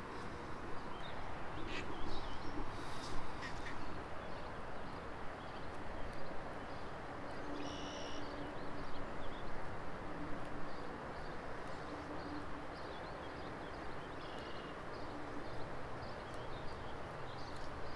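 Waterfowl calling now and then across the pond, with one higher call about eight seconds in, over a steady outdoor background hiss.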